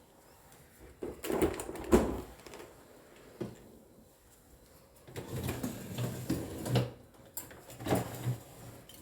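Knocks and rattles of a dishwasher being opened: the door let down and the rack pulled out, with dishes shifting in it. There is a pair of knocks early on and a busier cluster of rattling from about five seconds in.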